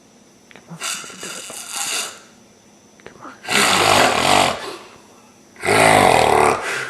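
A person snoring: three buzzing snores about two seconds apart, the first fainter and the next two loud.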